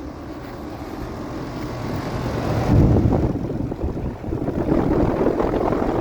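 Outdoor air conditioner condenser units running, a steady whirring fan noise that grows louder over the first few seconds and then holds.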